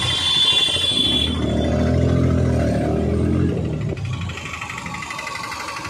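Motor vehicle engines in dense street traffic. About a second in, a nearby engine sets up a steady drone for about three seconds, then it drops back to a lower traffic noise.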